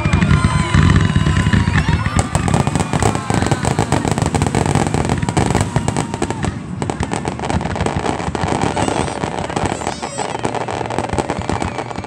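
Fireworks display: deep booms of shells bursting in the first couple of seconds, then a dense, continuous crackling of many small pops from crackle shells.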